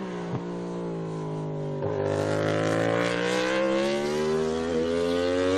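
Racing motorcycle engine running at high revs, its note slowly rising in pitch, with a short break about two seconds in.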